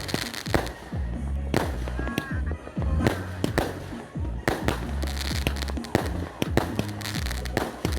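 Fireworks and firecrackers going off in many sharp, irregularly spaced bangs, over music with a steady bass line.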